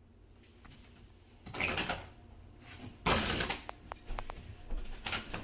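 Wall-to-wall carpet and its pad being pulled up off the floor: a scraping, tearing rustle that starts about a second and a half in and swells again near the middle, with a few sharp snaps as it comes loose.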